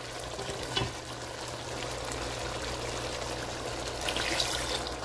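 Chicken in a curry sauce sizzling in a cooking pot, with a single spoon knock about a second in. Around four seconds in comes a louder splashing stretch, like liquid being poured into the pot.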